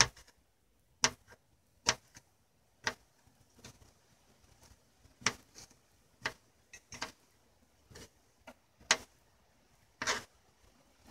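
Small kitchen knife chopping a green chili pepper on a plastic cutting board: sharp, separate taps of the blade hitting the board at uneven spacing, roughly one a second.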